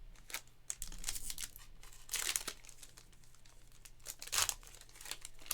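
Foil trading-card pack wrappers crinkling and tearing as packs are handled and opened, in a series of short rustles, with the loudest about two seconds in and again about four and a half seconds in.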